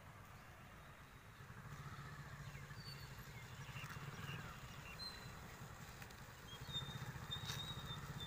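Motorcycle engines running at low revs, a faint low hum that grows louder near the end as the bikes approach.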